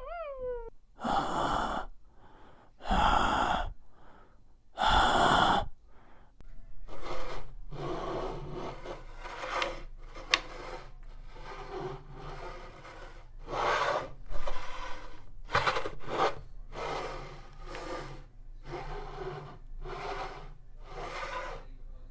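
A person breathing hard and gasping: three loud, drawn-out breaths in the first few seconds, then a long run of quicker, shorter breaths.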